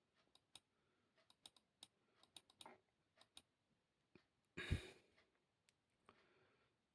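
Faint, scattered clicks of a computer mouse working menus, with one louder short thump a little past the middle.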